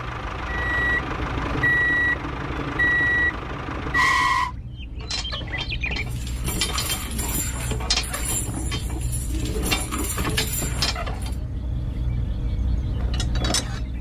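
Four high electronic reversing beeps, about one a second, over a steady low engine drone; then, from about five seconds in, a run of metallic clinking and rattling as a small chain is handled and hooked on.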